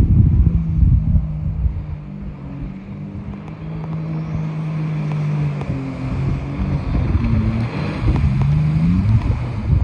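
Homebuilt mini jet boat's engine running at speed across the water, with wind rumbling on the microphone in the first second. The engine note grows louder as the boat turns and approaches, and its pitch rises near the end as it comes close.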